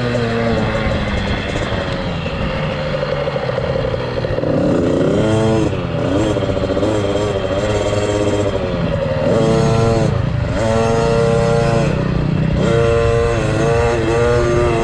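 Dirt bike engine heard from on board while riding: fairly steady at first, then revving up and dropping back repeatedly from about four seconds in, as the rider accelerates, shifts and rolls off.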